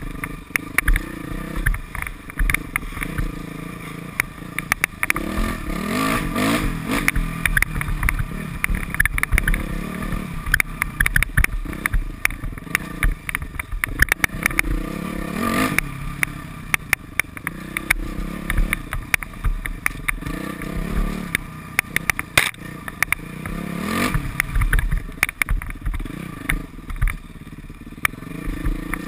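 Modified Yamaha YZ426F four-stroke single-cylinder dirt bike engine running hard, its revs climbing sharply three times, with frequent clattering knocks from riding over rough ground.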